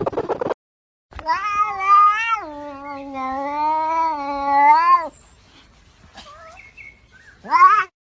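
Domestic cat yowling: one long, wavering, drawn-out call of about four seconds, then a short rising meow near the end.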